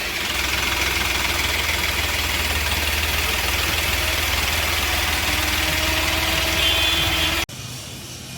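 Ashok Leyland Dost diesel engine idling steadily after the throttle is released, then cutting off abruptly near the end. The engine has a misfire that makes it jerk and refuse full revs, traced to a failing crankshaft position sensor.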